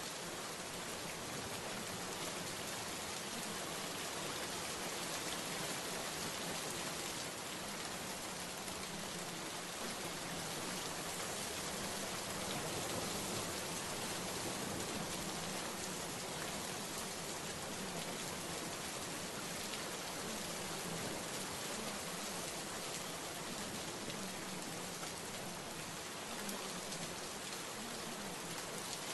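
Steady rain sound: an even, unbroken hiss of rain falling on a surface.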